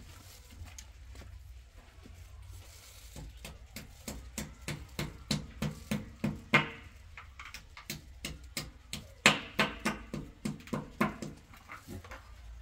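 Quick, irregular clicks and light taps of plastic being handled, a few a second, busiest about nine to eleven seconds in.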